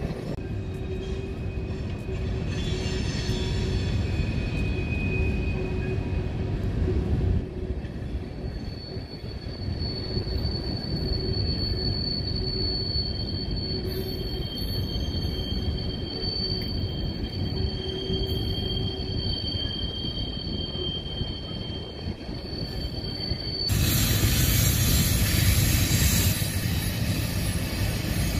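Freight train of coal hopper cars rolling past with a continuous rumble of steel wheels on rail. From about 9 s to 24 s, two steady high-pitched wheel squeals ride over it. Near the end the sound turns abruptly louder and fuller.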